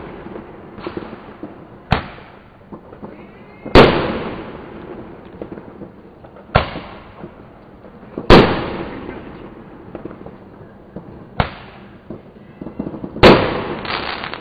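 Fireworks and firecrackers going off: three big bangs about four to five seconds apart, each echoing and dying away over a second or two, with five smaller sharp bangs in between.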